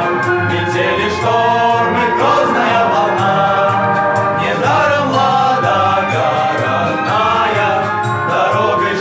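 A small group of sailors singing a song together in harmony over musical accompaniment.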